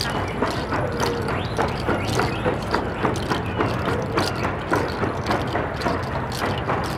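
Steady rhythmic knocks, about two a second, over the general noise of a crowd walking in a street procession.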